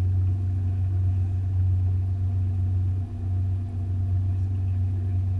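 Boat engine running steadily, a low even hum with a brief dip about three seconds in.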